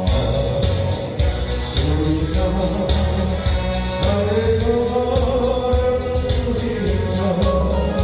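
Music: a Korean polka-style pop song with band backing, a steady beat and a vocal melody.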